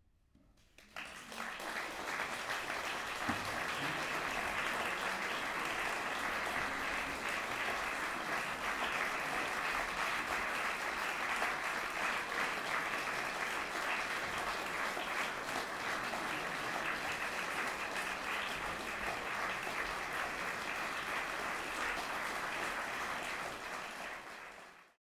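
Audience applauding steadily, a dense clatter of many hands clapping that starts about a second in and fades out near the end.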